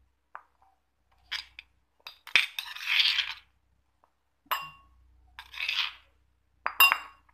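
Metal spoon scraping coarsely pounded aromatics out of a stone mortar, in a series of short scrapes with sharp clinks of metal on stone.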